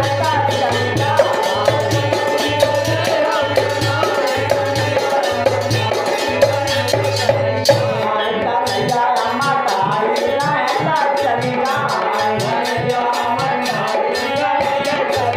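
Instrumental interlude of a Hindi devotional bhajan: a fast, even percussion beat with a shaker-like rattle over a melody line and a low bass, with a brief break in the beat about eight seconds in.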